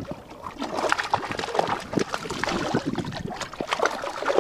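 Choppy water lapping and splashing against the hull of a small fishing boat, an irregular run of little slaps and spatters.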